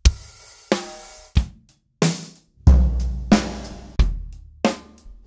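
Drum kit strokes, about one every two-thirds of a second: bass drum kicks mixed with snare and tom hits. Some kicks have a deep ring that carries on, while others stop short.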